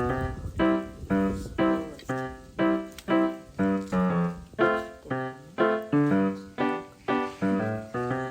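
Background music: piano playing a light, steady melody, about two to three notes a second.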